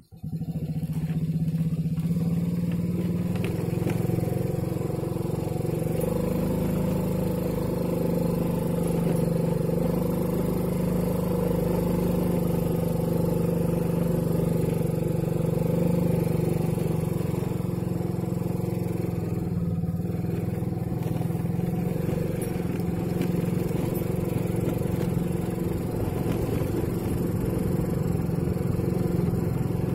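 Motorcycle engine running at a steady pitch, heard from on the moving bike.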